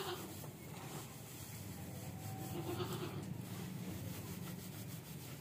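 Dry chopped straw and oilseed cake rustling and crackling as hands lift and turn it in a wooden feed trough, with a short goat bleat about halfway through.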